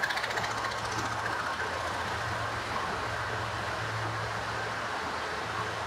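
Train running: a steady rumble and rushing noise with a low, even hum underneath that drops out briefly near the end.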